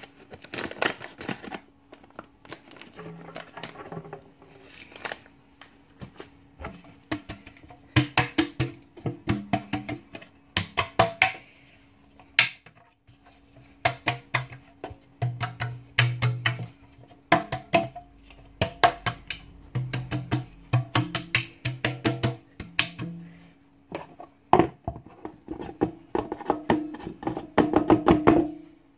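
Flour being shaken and tapped around inside a buttered metal cake mould to coat it: bursts of quick knocks on the tin, with short low thuds, louder near the end.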